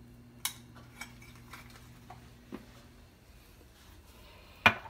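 Spice jars and a stainless steel mixing bowl being handled on a kitchen counter: a few light clicks and taps, then one sharp knock shortly before the end, over a low steady hum.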